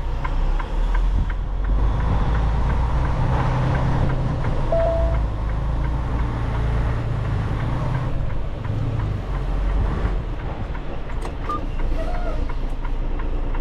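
Semi truck's diesel engine running with a steady low rumble, heard from inside the cab while the truck moves slowly.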